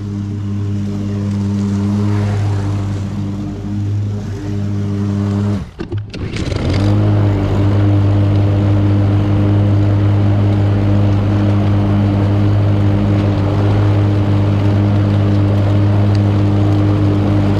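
Gas lawn mower engine running steadily while mowing. It breaks off briefly about six seconds in, then runs on steadily and a little louder.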